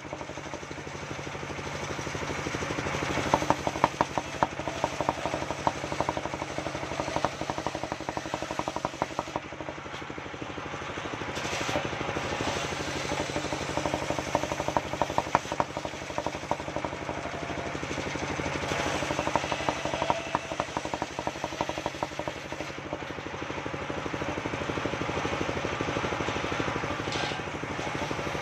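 Engine-driven mobile circular sawmill running, its large circular blade ripping a waru log lengthwise into boards. A steady engine drone with a rapid pulsing beat grows louder several times as the blade bites into the wood.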